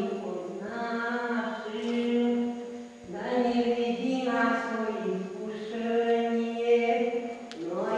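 A single voice singing a slow, chant-like melody in long held notes that slide from one pitch to the next, with a short break about three seconds in.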